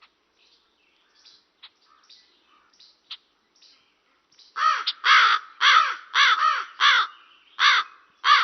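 Raven giving a rapid series of about seven loud, harsh caws in the second half, after a few seconds of only faint short sounds.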